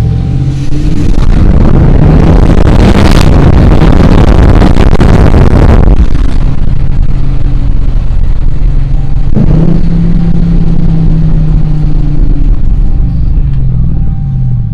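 Dodge Charger R/T's V8 engine pulling hard under acceleration for about six seconds. It then settles into a steadier engine note with a distinct pitch from about nine seconds in, falling away near the end.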